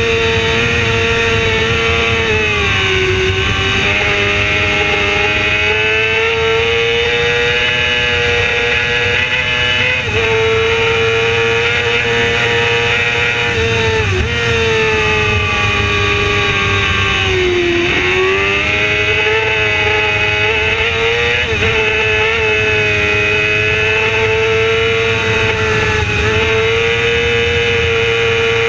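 Racing motorcycle engine at high revs at full race speed, its pitch mostly steady with several brief dips, the deepest near eighteen seconds in, over a steady rush of wind.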